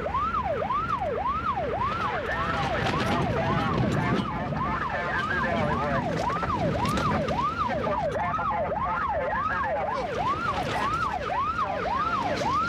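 Police car siren in a fast yelp, its pitch sweeping up and down about twice a second, over the pursuing car's engine and road noise.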